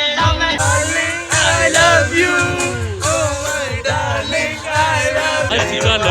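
Music with a male voice singing, loud and continuous.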